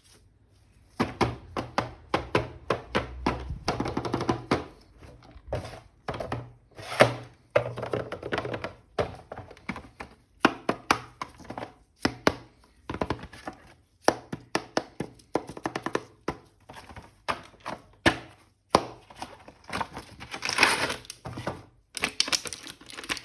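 Plastic toy and packaging being handled: a long run of irregular sharp knocks and clicks, several a second, with background music underneath.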